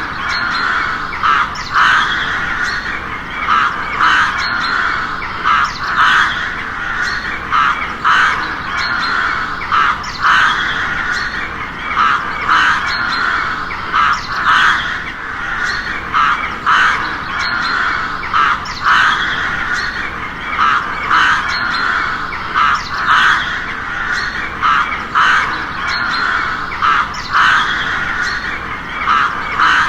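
Crows cawing over and over, short harsh caws following one another about once or twice a second without a break.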